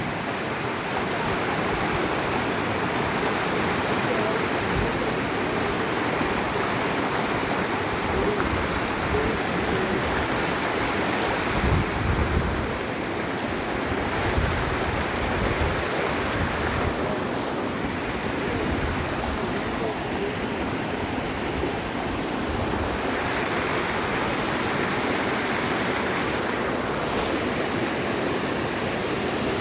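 Mountain valley stream rushing steadily over rocks, a full, unbroken water noise. A few low thumps come about twelve seconds in.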